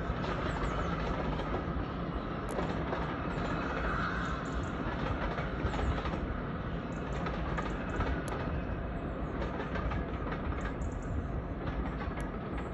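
Train hauled by the Flying Scotsman steam locomotive rolling past on the rails: a steady rumble with scattered sharp clicks as the wheels cross the rail joints.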